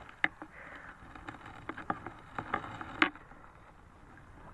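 Lake water splashing and sloshing around someone wading, a string of irregular sharp splashes with the loudest about three seconds in.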